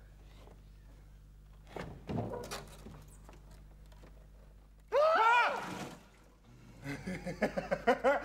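A man's loud wordless cry about halfway through, rising and then falling in pitch, followed near the end by a run of short, quick vocal bursts. A few knocks come earlier.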